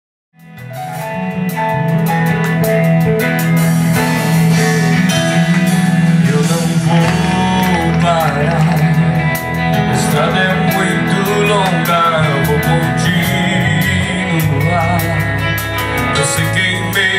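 Christian song with a singing voice over guitar and low held bass notes, starting about half a second in after silence.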